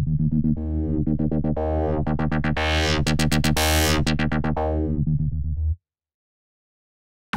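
Xfer Serum software synthesizer playing a factory sequence preset: a fast repeating pattern of notes over a steady bass. It grows brighter to a peak about midway and darker again, then stops abruptly nearly six seconds in.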